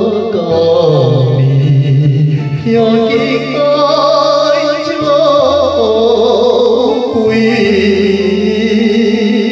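Taiwanese Hokkien ballad playing: a sustained melody with wavering vibrato over a keyboard backing and steady bass notes.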